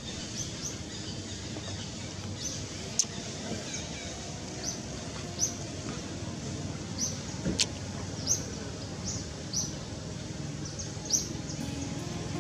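Outdoor ambience of a bird chirping, short high notes repeating about once a second over a steady low rumble. Two sharp clicks come about three seconds in and again about seven and a half seconds in.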